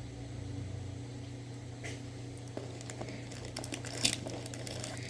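Plastic snack packaging rustling and crinkling as it is handled, with a few sharp clicks, over a steady low hum.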